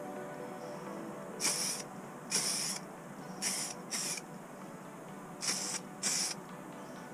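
Aerosol can of spray primer hissing in six short bursts, about a third to half a second each, as a model truck chassis is primed.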